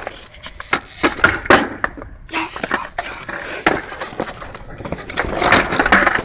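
Skateboard wheels rolling and the board clacking and knocking repeatedly, with a louder stretch of rolling or scraping near the end.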